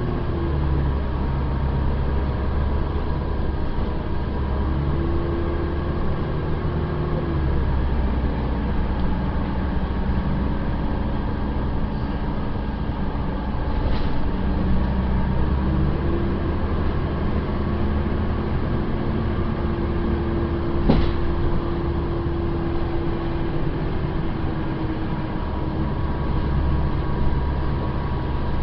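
Inside a moving city bus: a steady engine drone with road noise, the engine note shifting up and down as the bus changes speed. Two short sharp clicks cut through it, the louder one about two-thirds of the way through.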